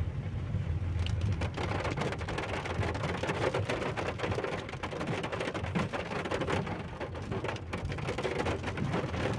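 Steady rain falling, with many small drop ticks over a constant low rumble underneath.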